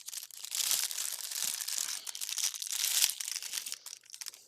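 Packaging crinkling and rustling as the light is unwrapped by hand, a dense run of small crackles that dies away near the end.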